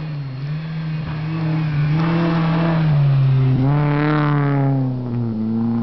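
Renault Clio 16V's four-cylinder engine revving hard as the car drifts past on snow. The engine note climbs, dips sharply about three and a half seconds in, climbs again as the car passes, loudest about four seconds in, and then falls away.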